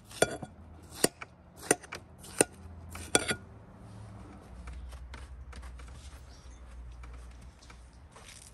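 Kitchen knife cutting through a ripe watermelon wedge: five crisp cuts about two-thirds of a second apart, then only faint small clicks.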